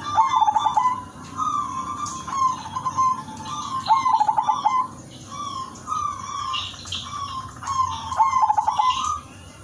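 Zebra dove (perkutut) singing its cooing song: three rippling phrases of quick staccato coos, near the start, about four seconds in and near the end, with softer single coos between them.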